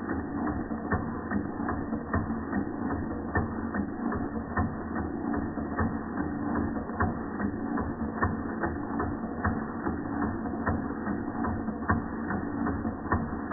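Georges Carette vertical toy steam engine running under steam: its piston and crank mechanism clicks regularly, about twice a second, over a steady low background noise.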